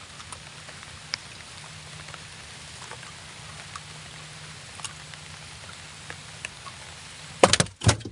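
Steady faint hiss with a few small scattered ticks while a freshly caught fish is handled, then several sharp knocks against the wooden boat near the end as the angler leans into the hold.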